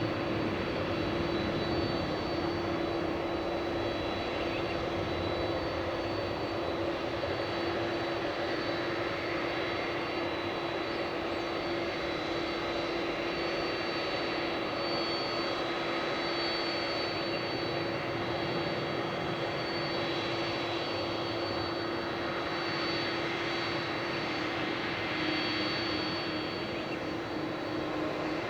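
Turbofan jet engines of a Boeing 767-300ER airliner running steadily: an even rushing drone with a low steady hum and a faint high whine, at a constant level with no sudden changes.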